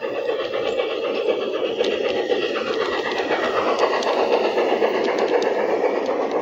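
An LGB G-scale model train, a small steam locomotive pulling freight and passenger cars, running past along garden railway track. The wheels make a steady rolling rumble that grows a little louder as the cars pass close, with scattered light clicks.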